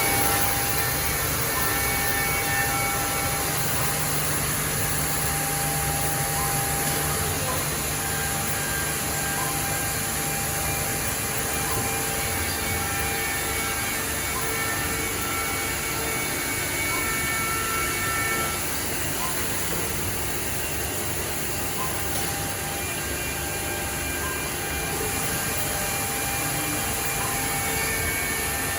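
WEEKE BHC 750 CNC machining centre running steadily: a constant mechanical noise with a strong high hiss and a few faint steady tones that come and go.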